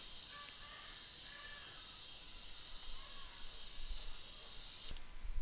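Steady high-pitched hiss of background noise with a few faint short chirps, cutting off suddenly near the end.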